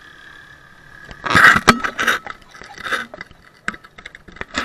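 Handling noise from fingers gripping a handheld action camera: a loud rustle with a sharp click about a second and a half in, further rustles, then a run of small clicks near the end.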